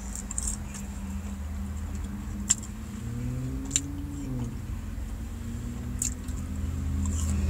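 Someone chewing fast food with their mouth close to the microphone, with a few sharp mouth clicks. A steady low hum from inside the car runs underneath.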